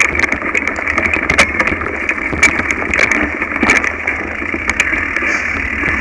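Mountain bike rolling over a rough dirt singletrack, picked up through a handlebar-mounted camera: a steady rattle and rumble of the bike with frequent sharp knocks and clatters as it jolts over the bumpy ground.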